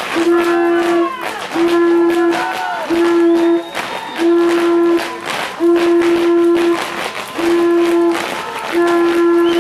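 A horn blown in seven steady blasts of the same pitch, each just under a second long, in an even rhythm, over crowd shouting.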